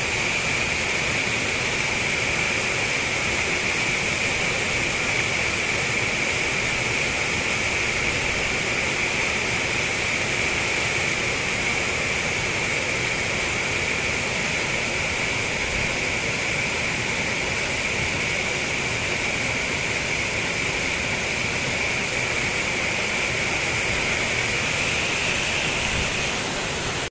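Waterfall pouring over rock ledges into a pool: a steady rush of falling, splashing water.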